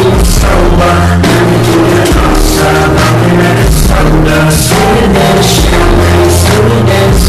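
Loud pop music with a steady beat and deep bass.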